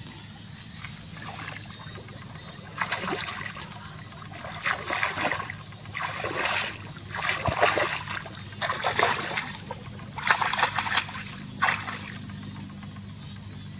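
Water splashing and sloshing in a run of short bursts, about one a second, over a steady low hum.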